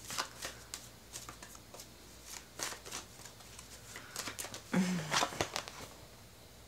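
A tarot deck being shuffled by hand: soft, irregular clicks and slides of cards against each other. A short voiced sound, like a brief hum, breaks in about five seconds in.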